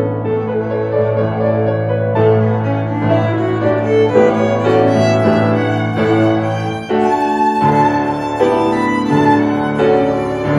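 Violin and grand piano duet: the violin plays long, sustained melody notes over held piano chords. About seven seconds in there is a brief lull, and the piano's bass moves to a new chord.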